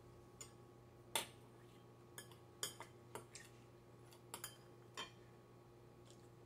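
Metal spoon and chopsticks clinking against ceramic bowls: about eight short, sharp taps scattered over several seconds, the loudest about a second in, over a faint steady hum.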